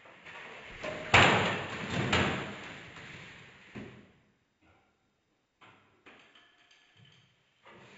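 A person falling off a plastic children's table onto a tiled floor: a loud crash about a second in, a second heavy thump a second later, then a few small scattered knocks.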